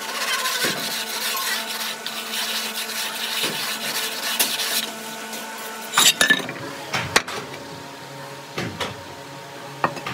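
Hand trowel scraping and smoothing damp molding sand, then a few sharp metallic clinks about six to seven seconds in as the metal tools and pattern are set down.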